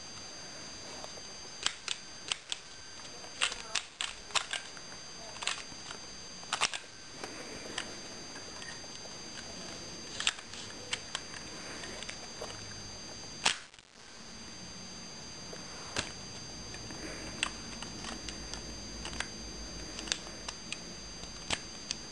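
Sharp plastic clicks and clacks of a Lego bolt-action pistol as its parts are handled and its mechanism is worked, with one louder snap a little past halfway.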